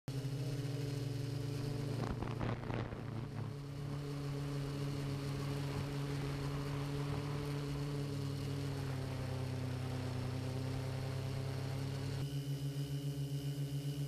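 Camera drone's motors and propellers humming steadily at an even pitch. About two seconds in there is a brief rush of wind noise. About twelve seconds in the sound cuts to another take, where the hum pulses about six times a second.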